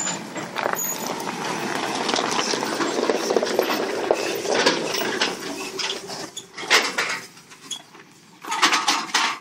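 A Range Rover P38 with its 4.0 V8 passing close at a crawl on a narrow dirt trail, with bushes brushing and scraping along its body and a dense crackle of clicks. Near the end a short burst of rattling comes from the empty trailer towed behind it.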